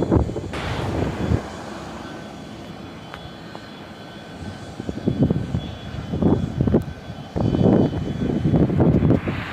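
Boeing 737 jet engines on takeoff. The noise is loud at first and drops away sharply about a second and a half in, then comes back as an uneven, gusty rumble, with wind buffeting the microphone.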